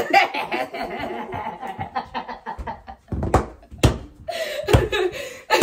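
A man and a woman laughing together, with four or five sharp thumps in the second half.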